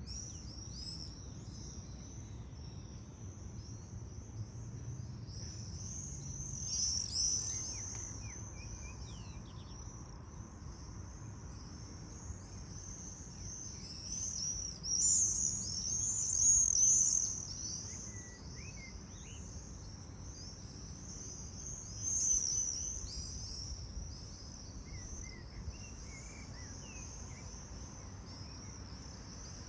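Shrill, high-pitched calls of many birds flying overhead, continuing throughout and swelling louder about a quarter of the way in, again around the middle, and briefly about three quarters through, over a faint low background hum.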